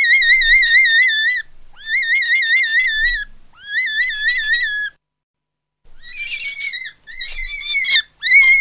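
A high, warbling whistle-like tone repeated in bursts of about a second and a half with short gaps between them, its pitch wobbling quickly and evenly. After a brief silence, rougher and more broken warbles follow, and a loud burst comes near the end.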